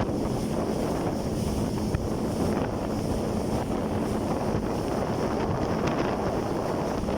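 Jet ski running at sea. Wind buffets the microphone over rushing water and a faint steady engine hum.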